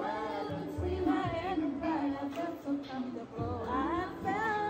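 Background music: a song with a woman singing over low bass notes.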